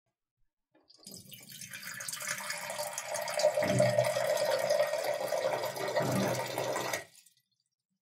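Water dispenser running a stream of water: it starts about a second in, grows louder over the next couple of seconds, runs steadily, then stops abruptly near the end.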